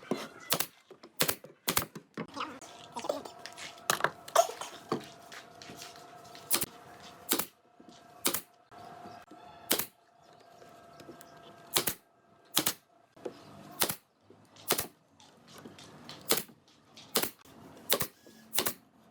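Repeated sharp knocks, roughly one a second and sometimes in quick pairs, like strikes on wood, with a faint steady hum underneath through the middle.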